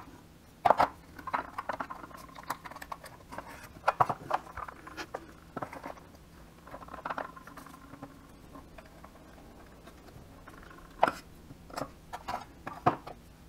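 Hand tools and wooden pieces being handled on a wooden workbench: irregular light knocks, clicks and taps of wood and metal being set down and moved about. It is quieter in the middle, with a few sharper knocks toward the end.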